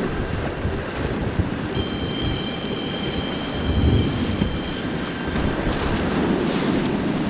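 Fast-moving whitewater rushing and churning around a kayak, with wind buffeting the microphone.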